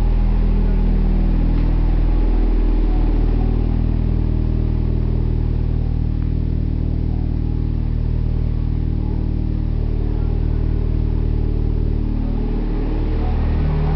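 Turbocharged Mazda Miata four-cylinder engine idling steadily, its pitch shifting slightly about three seconds in and again near the end.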